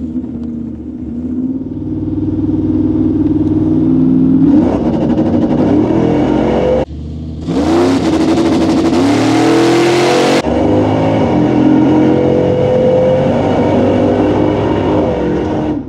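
Cammed 6.0-litre LQ9 V8 of a Chevrolet Silverado pulling hard under acceleration, its note climbing in pitch in several runs. Heard mostly from inside the cab. Midway it is heard for about three seconds from outside as the truck drives toward the microphone, much louder with a rush of noise over the exhaust.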